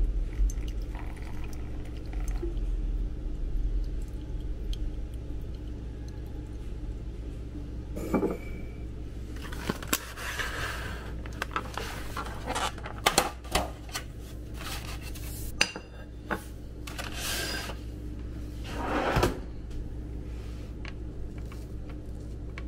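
Handling sounds on a kitchen counter: scattered clicks and knocks of a clear plastic cake container, a glass and a fork, with two stretches of rustling plastic, over a steady low hum.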